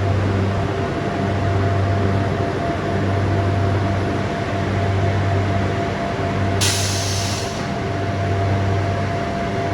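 Biesse Skill CNC machining centre running: a steady mechanical hum that swells and eases about every second and a half, with a short burst of air hiss about two thirds of the way in.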